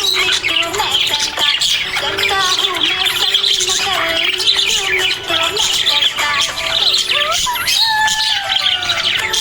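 A group of small pet parrots chirping and chattering in a dense, continuous stream of high chirps, with a few lower whistled and gliding notes among them.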